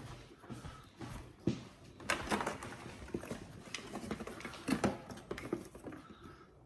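Irregular light plastic clicks and knocks as foam darts are handled and pushed into a toy blaster.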